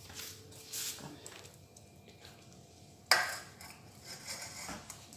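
Light clinks of dishes, then one sharp metallic clank a little past three seconds in, ringing briefly: a stainless-steel dog food bowl set down on a tiled floor.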